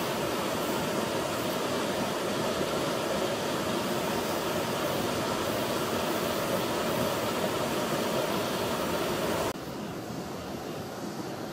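River rapids: water rushing over rocks in a steady loud rush that cuts off abruptly near the end, leaving a fainter steady hiss.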